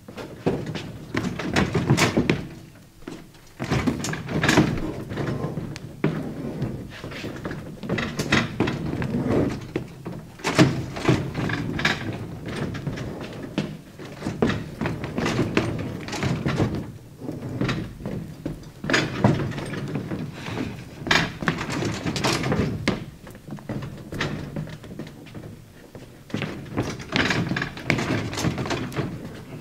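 Irregular thumps and knocks on a stage: feet stamping and running on the floorboards, and a metal folding chair being handled and set down.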